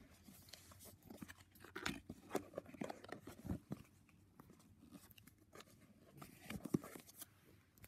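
Cardboard smartphone box being handled and opened: scattered faint rustles, scrapes and light taps of the packaging.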